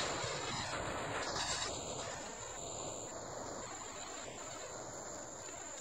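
Insects chirring in one steady, high-pitched tone, over a low rumble from the departing freight train that fades slowly.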